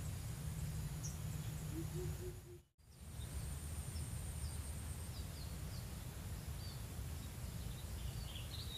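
Riverside ambience: a steady low rumble under a thin, steady high insect buzz, with small birds chirping a few short, high notes in the second half. The sound cuts out completely for a moment about three seconds in.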